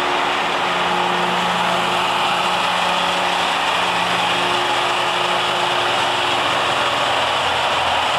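Mobile transformer oil purification and degassing unit running, a steady machinery hum with a whirring noise over it that holds even throughout.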